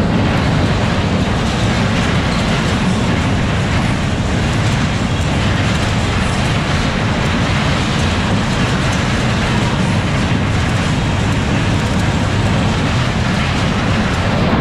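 A Superbob-style fairground ride running, heard from a seat in one of its taxi cars: a steady loud rumble of the cars travelling round the track.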